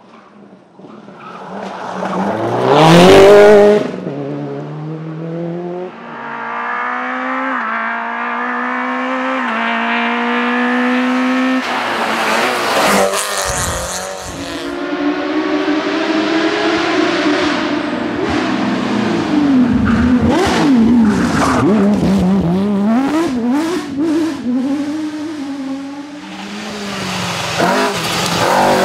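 Rally cars at full speed, one after another: a loud pass about three seconds in, then an engine pulling up through several gears with a rising pitch, then revs swinging up and down with sharp cracks mixed in.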